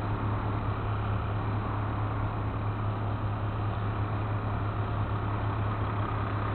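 A vehicle engine running steadily, with a constant low hum.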